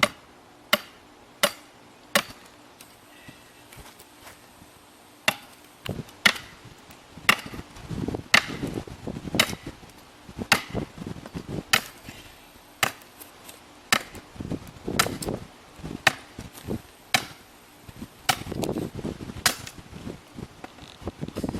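A stake for a bird feeder pole being driven into the ground with repeated sharp blows, at first about three strikes every two seconds, then more spaced out and irregular, with scuffing noise between some strikes.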